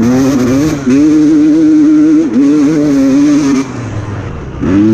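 Enduro dirt bike engine held on the throttle, its pitch wavering a little. It drops off about three and a half seconds in and picks back up near the end.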